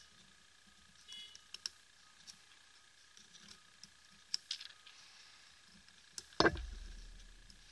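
Light scratches and clicks of a thin metal pick working on the lit switch board of a BLF Q8 flashlight. About six and a half seconds in, a loud thump with a low rumble that fades slowly, as a fingertip presses down on the switch.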